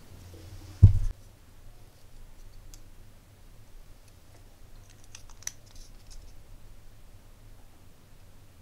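Faint plastic clicks and scraping as a Casio F91W watch is handled and pressed into a 3D-printed plastic holder frame, with a cluster of sharper clicks about five seconds in. A single dull thump about a second in is the loudest sound.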